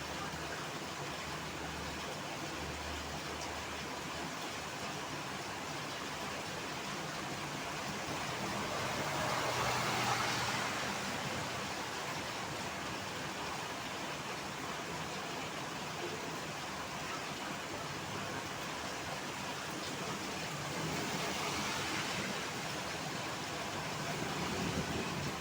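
Steady hiss of heavy rain with road traffic. About ten seconds in, a vehicle passes with its tyres hissing on the wet road, swelling and fading away; smaller passes follow near the end.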